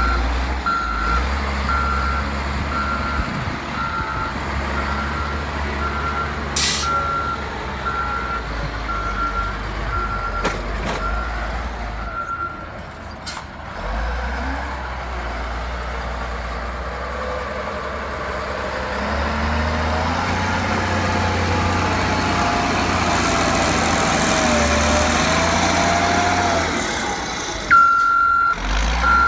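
Reversing alarm on a heavy construction vehicle, a high single-tone beep repeating a little more than once a second over the low running of its engine, with a brief hiss about seven seconds in. The beeping stops after about twelve seconds; the engine then works harder with a wavering whine, and the beeping starts again near the end.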